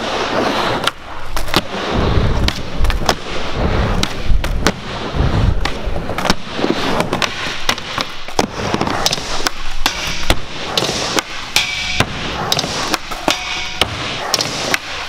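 Skateboard wheels rolling over smooth concrete, broken by many sharp clacks as the board pops and lands, with scraping grinds of the trucks on metal coping.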